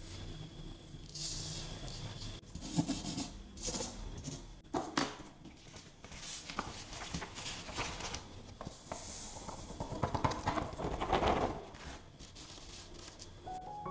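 A paper sheet rustling and scraping as it is handled and tipped, with loose colored sand sliding and being tapped off it, in irregular bursts.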